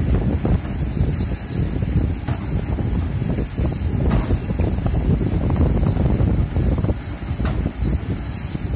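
Kobelco hydraulic excavator's diesel engine running as it works its arm and bucket through the soil, heavily overlaid by gusty wind buffeting the microphone.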